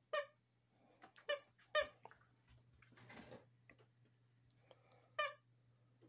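Squeaker in a plush dog toy squeaking four times as a beagle bites down on it: three short squeaks in the first two seconds and one more about five seconds in.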